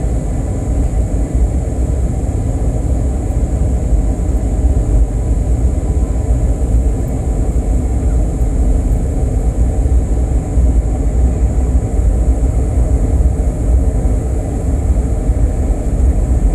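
Steady low rumble of cabin noise aboard an Airbus A321neo airliner, from its jet engines and the airflow, with a faint steady high hiss over it.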